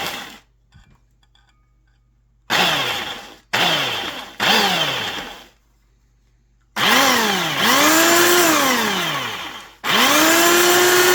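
A 1990s Sears Craftsman belt sander's electric motor, run without its dust-collection fan, is switched on in three short blips, each winding down with a falling whine. It is then run for two longer stretches of a few seconds, speeding up to a steady whine and winding down in between, as the belt tracking is tested and the belt now stays on.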